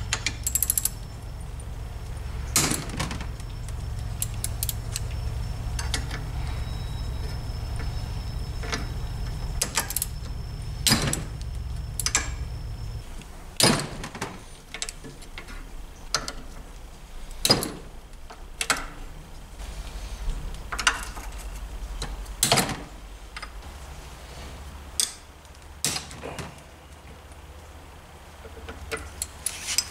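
Metal hand tools clinking and knocking on a Motobecane AV7 moped engine during disassembly: sharp, irregular clicks and clanks of wrench on nuts and studs. A low hum sits underneath and stops about halfway through.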